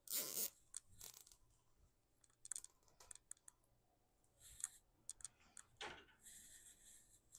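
Faint handling sounds of a moss pole being fastened with plastic cable ties: scattered rustles and sharp clicks, with a short buzzing zip near the end.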